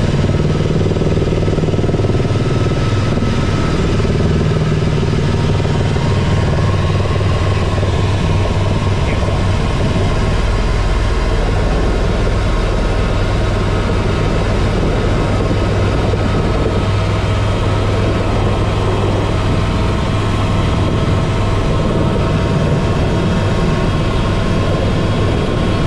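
Helicopter turbine engine and rotor noise, a loud steady drone with a strong low hum.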